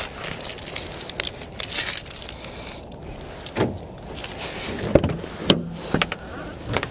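Rattling, rustling handling noise with small clicks, as of keys and gear being handled at a car during packing up. There are a few sharp knocks in the second half.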